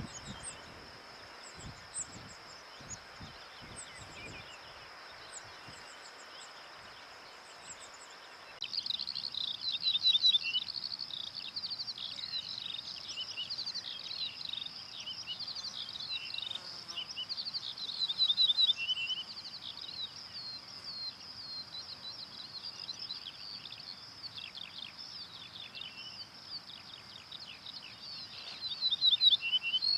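For the first several seconds, a steady high insect trill with a few faint high bird calls. Then, after an abrupt change, birds sing busily: a dense stream of high chirping song with louder phrases coming back every several seconds, from an ortolan bunting among other birds.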